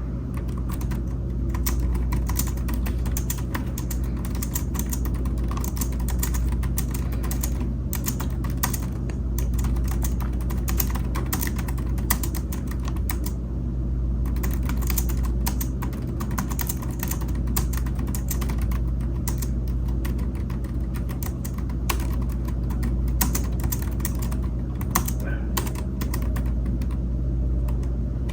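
Typing on a computer keyboard: quick key clicks in uneven runs with short pauses, over a steady low hum.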